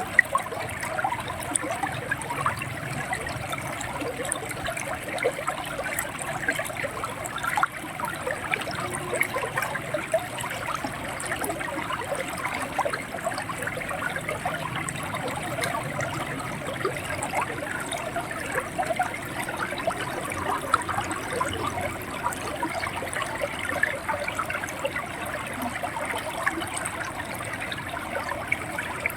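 River water flowing and gurgling: a steady rush with many small, quick plinks and splashes running through it.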